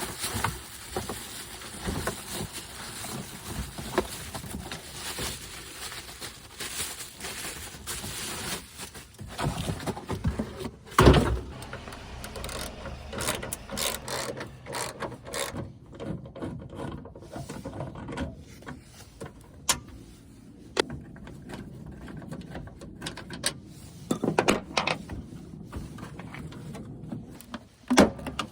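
Hand work on a pickup's taillight assembly: scattered clicks and knocks of tools and plastic parts being handled, with one heavy thump about eleven seconds in.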